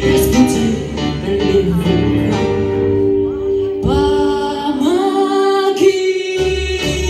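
A woman singing live into a microphone over instrumental accompaniment, holding long notes. About four seconds in she slides up into a new held note, and the low accompaniment drops out for a moment near the end before returning.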